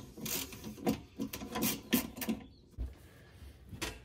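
Hand screwdriver backing screws out of a wooden cleat, a series of short, irregular rasping creaks with a brief pause partway through.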